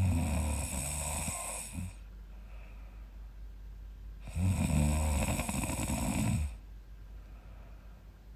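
A young woman snoring during sleep: two long, buzzing snores about four seconds apart, each lasting around two seconds, with quieter breathing in between.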